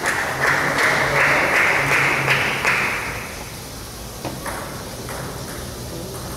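A loud rushing noise for the first three seconds, then a few sharp ticks of a table tennis ball bouncing, as the ball is brought back into play.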